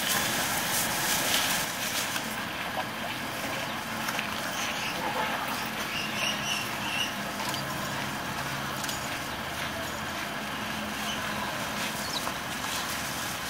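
Capybaras feeding in a pile of leafy branches: leaves and twigs rustling and crackling as the animals pull at them and chew. The crackling is strongest in the first couple of seconds, over a steady background noise.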